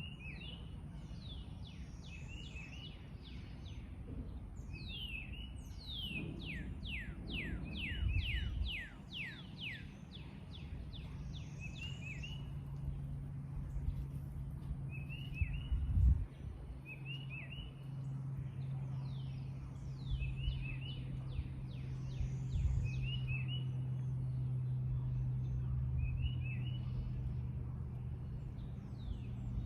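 Backyard songbirds singing and calling: quick runs of downward-sliding whistles and short two-note chirps repeated over and over. A steady low hum comes in about a third of the way through, with a dull thump near the middle.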